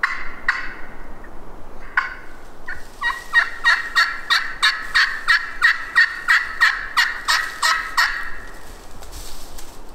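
Turkey yelping: a few scattered notes, then a fast, even run of loud yelps, about three or four a second, that stops about eight seconds in.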